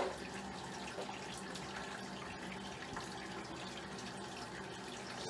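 A steady, even hiss with a faint low hum under it.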